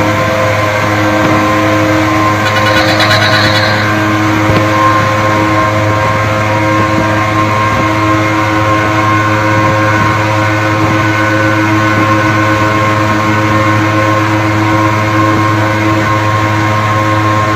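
Suzuki two-stroke van engines running flat out at a steady high speed in a road race. The note holds even throughout, with a brief higher-pitched sound about three seconds in.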